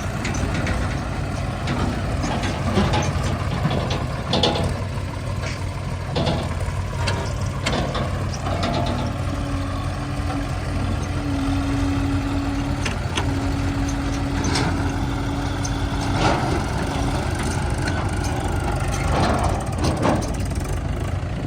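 Heavy diesel machinery engine running steadily. A higher steady whine is held for several seconds midway, and a few short knocks come through at intervals.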